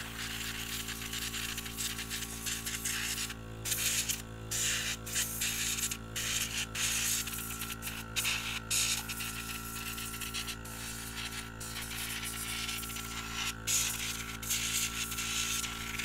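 A small mains-powered airbrush compressor droning steadily while the airbrush blows air in a loud hiss across a keyboard, the hiss breaking off briefly several times as the trigger is let go and pressed again.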